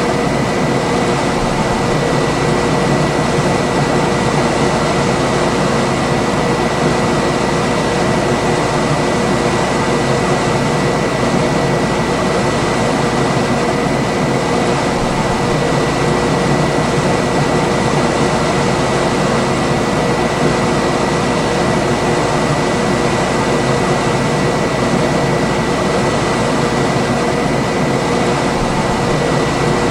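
Room air conditioner running steadily: an even rushing hum with a faint high whine and two lower steady tones in it.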